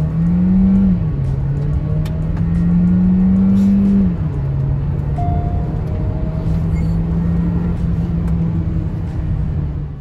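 Kia Seltos GT Line's 1.4-litre turbo-petrol engine, heard from inside the cabin, revving hard under full-throttle acceleration in Sports mode. The 7-speed dual-clutch gearbox shifts up about a second in and again about four seconds in, each shift dropping the pitch before it climbs again, and the engine then runs on at a steadier pitch.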